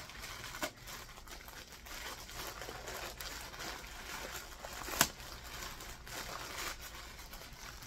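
A bag rustling and crinkling as it is handled and opened, with one sharp click about five seconds in.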